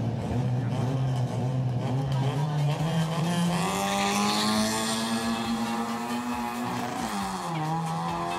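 Drag-racing car's engine revving hard, its pitch climbing steadily; about seven seconds in the pitch drops briefly, then climbs again.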